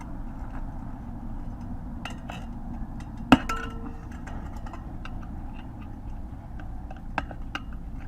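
Metal tools clinking and clanking against each other and the wheel during a roadside motorcycle inner-tube change. There are scattered light clicks and one sharp clank a little after three seconds in that rings briefly, over a steady low background rumble.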